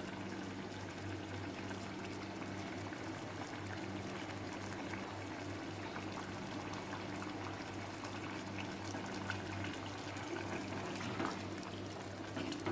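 Thick prawn masala gravy simmering in a clay pot on low flame, bubbling with many small pops as a wooden spoon moves through it, over a steady low hum.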